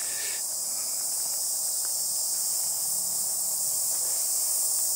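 A steady, high-pitched chorus of insects, unbroken and even in level.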